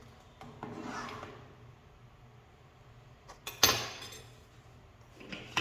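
A spoon stirring coffee and sugar into water in a pot, with a sharp clink of the spoon against the pot about three and a half seconds in and another near the end.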